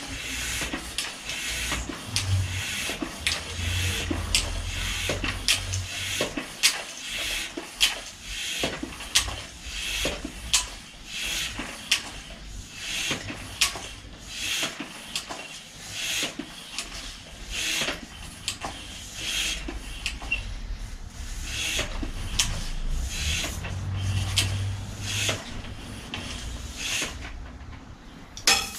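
Hand tools and metal parts clicking, knocking and scraping at a bicycle's rear hub and frame during rear-wheel work. The clicks come irregularly, one to three a second, over a low hum.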